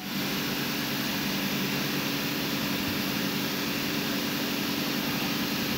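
Steady machine drone with a low hum.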